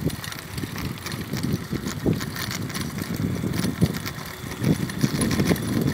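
Bicycle ridden along a paved street: an uneven rumble from the tyres and frame, with scattered rattles and knocks.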